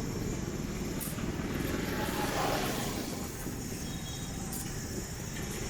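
Street traffic: a steady rumble of passing vehicle engines and tyres, swelling slightly as a vehicle goes by about two seconds in.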